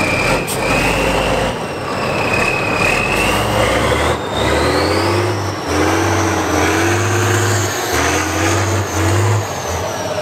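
Tatra eight-wheeled trial truck's diesel engine revving under load as it crawls through deep mud. A high whine climbs steadily in pitch through the middle of the run.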